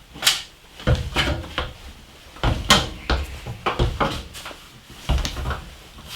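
Irregular knocks and clunks, about a dozen over six seconds, several with a heavy low thud, as objects are handled and set down.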